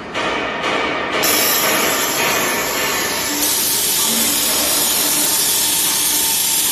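Horizontal CNC drilling machine for cabinet panels running a drilling cycle with no dust collection: a few sharp clicks, then a loud steady hiss that starts about a second in and changes tone partway through.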